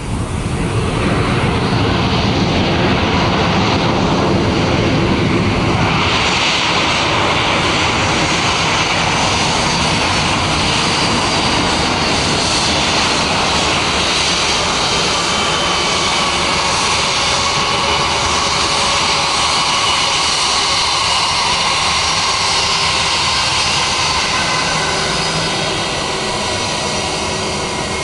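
Jet engines of an Air Serbia Airbus A319 running at low thrust as the airliner rolls slowly along the runway close by: a loud, steady jet rumble with a high whine over it, easing a little near the end.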